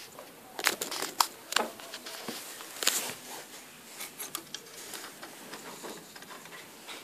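Irregular light clicks and taps indoors, loudest in a cluster about a second in and again near three seconds.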